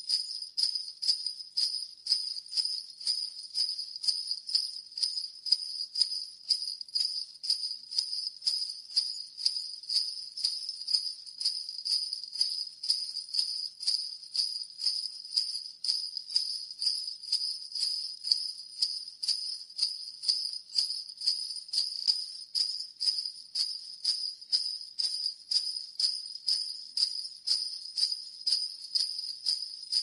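Sleigh bells shaken in a steady, even rhythm, about two jingling strokes a second.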